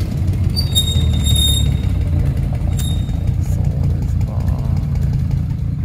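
A motorcycle engine running at low revs with a steady low sound as the bike rides slowly off.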